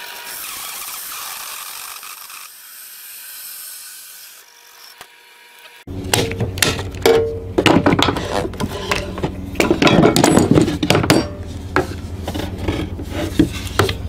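Harbor Freight bench drill press running a hole saw through particle board. A quieter high hiss for the first several seconds, then from about six seconds in the saw bites in with a loud, rough grinding over the steady hum of the motor.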